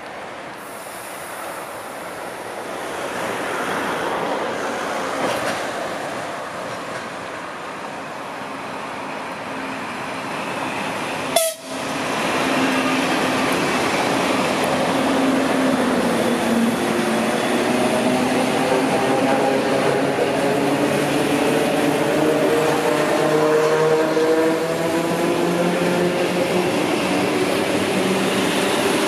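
EPL2T electric multiple unit rolling in with a rumble of running noise. There is a sharp click about eleven seconds in. Then its traction motors whine, several tones rising steadily in pitch as the train accelerates away.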